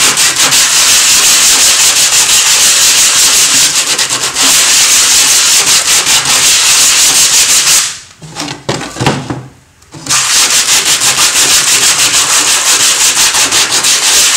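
Sandpaper on a small hand block rasping in quick back-and-forth strokes over a gesso-primed wooden board, the ground wetted so it is softening into a slurry and clogging the paper. The strokes stop for about two seconds around eight seconds in, then start again.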